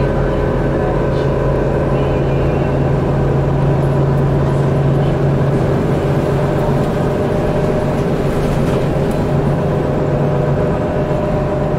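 Cummins ISL diesel engine of a Bustech ADi bus running under way, heard inside the cabin: a steady drone with road noise.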